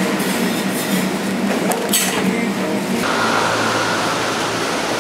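Paper wrapper rustling against steady eating-area room noise, then a cut about three seconds in to railway station concourse ambience: a steady hum with a faint high tone.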